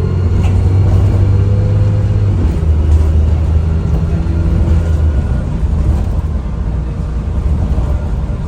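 Dennis Trident double-decker bus's diesel engine pulling, its low note rising and falling a few times, with a faint high turbo whistle above it.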